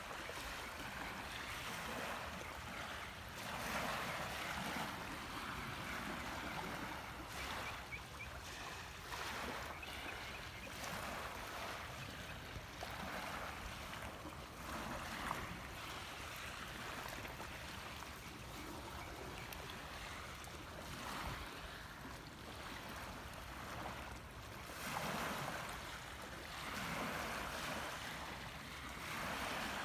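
Wind and small waves lapping at a bay shoreline, a steady rushing noise that swells and eases every few seconds.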